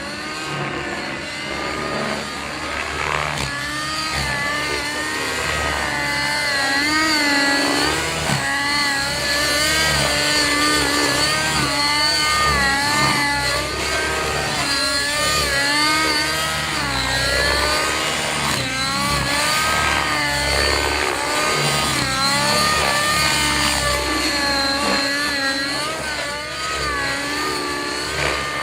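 Radio-controlled helicopter flying 3D aerobatics: its motor and rotor sound keeps rising and falling in pitch as it swings through the maneuvers.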